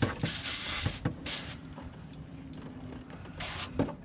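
Aerosol can of brake cleaner sprayed in three short hissing bursts, the first the longest, washing spilled engine oil off around the oil filter mount.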